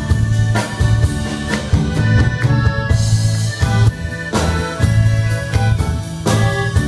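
Live band playing, with a drum kit keeping a steady beat under guitar and keyboard.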